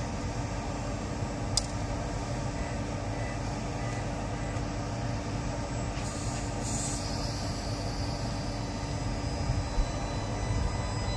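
Island Line Class 484 electric train standing at the platform, its equipment giving a steady low hum. There is a brief click a second and a half in, and a short hiss about six seconds in.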